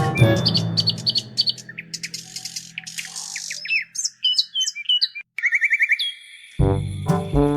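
Music fading out, giving way to birds chirping and tweeting in quick rising and falling calls. The music with a steady beat starts up again near the end.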